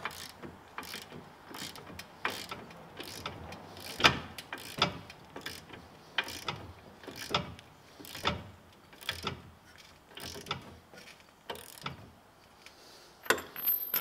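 Hand socket ratchet tightening a bolt, clicking on each back-swing in a steady rhythm of strokes, a little more than one a second.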